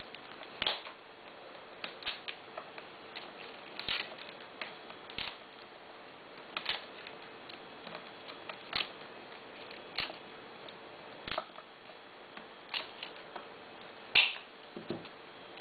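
Fresh tulip stems being snipped one after another with a cutting tool: about a dozen short, sharp snips, roughly one every second, the loudest near the end.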